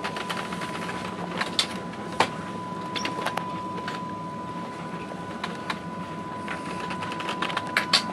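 The room sound of a ship's bridge: a steady low hum with a constant high thin tone over it, broken by irregular clicks and knocks, the sharpest about two seconds in and a cluster near the end.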